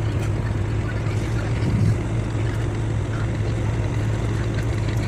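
Boat engine running with a steady low hum, over a wash of wind and water noise.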